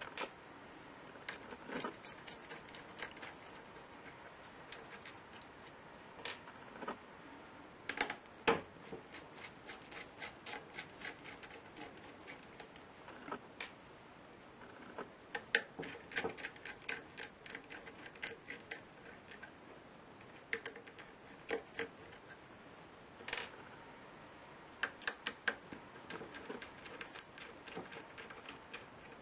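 Irregular small clicks and ticks, sometimes in quick runs, from small tools and the plastic and metal parts of a laptop being handled during disassembly.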